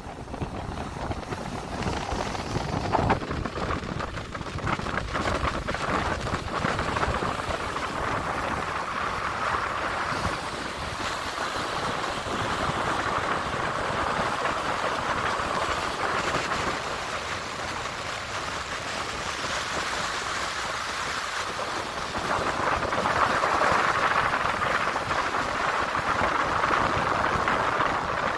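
Steady rush of sea water and wind at a moving ship's bow, with wind buffeting the microphone in the first several seconds. The water noise grows louder near the end.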